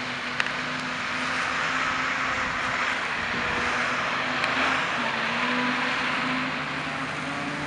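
Street traffic in slush: the steady low hum of a Peterbilt recycling truck's diesel engine over an even hiss of tyres on the wet, snowy road, with one brief click early on.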